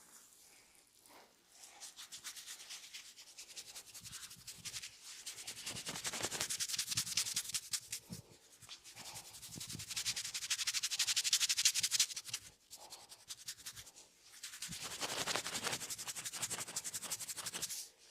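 Hands rubbing briskly back and forth over skin and hair in a massage: a fast, dry friction sound of many quick strokes, coming in long bouts with a brief break about two-thirds of the way through and stopping suddenly near the end.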